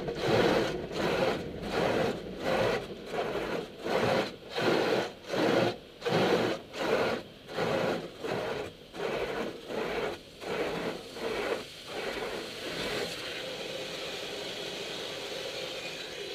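Automatic car wash heard from inside the car: cloth wash brushes sweeping over the body in a regular swish, a little under twice a second, fading out about twelve seconds in. A steady hiss of water spray remains after the brushes stop.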